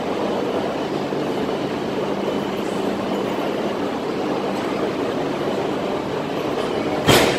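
E6 series Shinkansen creeping slowly up to a stationary E5 series train with a steady low hum, then near the end one sharp clunk as the two automatic couplers meet and lock.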